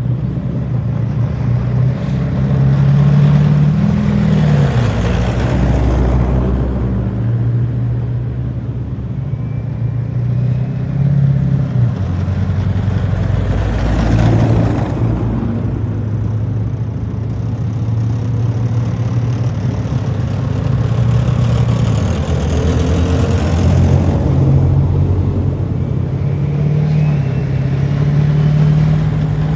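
Convoy of Warrior tracked infantry fighting vehicles driving past one after another, their diesel engines running with a note that steps up and down. The sound swells as each passes, loudest about four seconds in, around the middle, and again about three-quarters of the way through.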